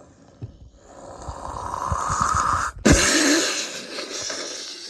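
A crowd of people coughing and wheezing. It swells over the first few seconds, breaks off for an instant just before three seconds in, then comes back at its loudest and slowly fades.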